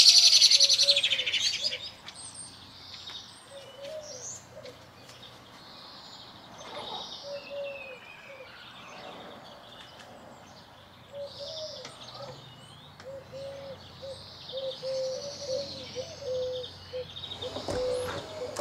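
Garden birdsong: several small birds chirping and trilling, with a low cooing pigeon repeating its phrases through the second half. A louder, closer bird call is heard in the first second or two, and a single knock comes near the end.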